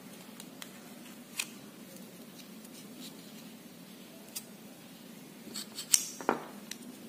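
Faint clicks and taps from handling a plastic airgun pellet magazine and working its rotor round with a small hex key, with a few sharper clicks and a knock near the end.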